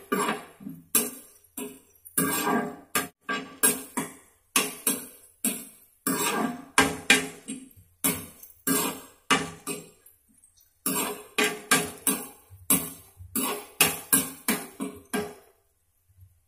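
A spatula stirring chopped onion, tomato and potato in a metal frying pan, knocking against the pan about two or three times a second with a short ringing clank each time. The knocks pause for about a second partway through and stop shortly before the end.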